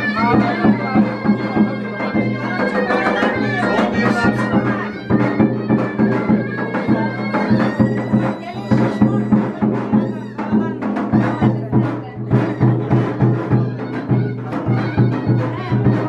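Traditional folk music: a reedy, bagpipe-like wind melody over a steady drone, with a regular drum beat.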